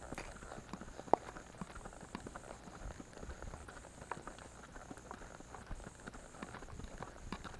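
Hoofbeats of a ridden horse walking on a sandy dirt road, an irregular patter of soft knocks, with one sharper knock about a second in.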